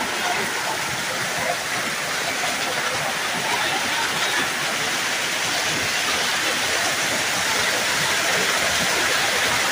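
Heavy hailstorm with torrential rain: hailstones and rain pelting the street and ground in a dense, steady rushing hiss.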